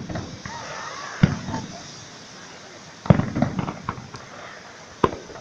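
Aerial fireworks shells bursting: a single bang about a second in, a quick run of several bangs just after three seconds, and another single bang near the end.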